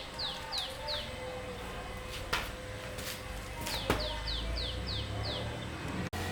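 A bird calling in runs of quick falling chirps, about four a second: a short run at the start and a longer one a little past the middle. Two sharp clicks fall in between, over a steady low hum.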